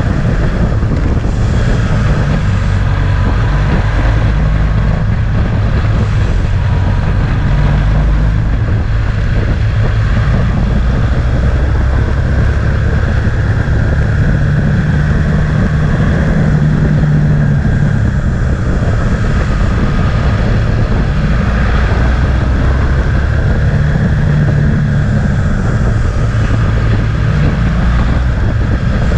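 Motorcycle engine running under way, its pitch shifting up and down with the throttle through the bends, with wind noise on the microphone.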